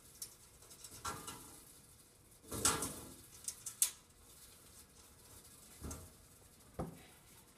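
Nylock nuts being started by hand onto the mounting studs of a pull-down spice rack inside a wall cabinet: scattered light clicks and knocks of metal hardware, with a cluster of louder knocks about two and a half to four seconds in.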